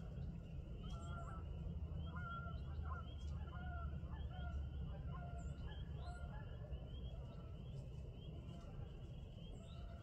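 Birds in the distance giving repeated short, honking calls. Behind them are a steady, high-pitched chirring chorus and a low, steady rumble.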